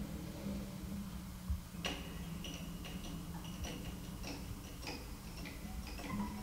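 A clock ticking at about three ticks a second, starting with a sharper click about two seconds in, over a low steady hum.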